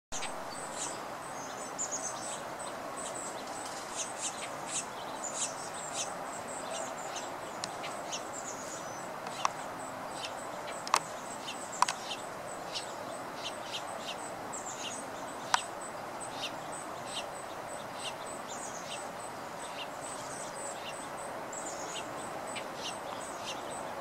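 Small birds giving many short, high chirps over a steady background hiss, with a thin high continuous tone behind them. A few sharp clicks stand out, the loudest a little before halfway.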